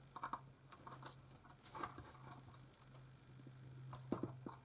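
Faint, scattered clicks and small scrapes of a small screwdriver working tiny screws out of a camcorder's plastic casing, with a few sharper clicks near the end.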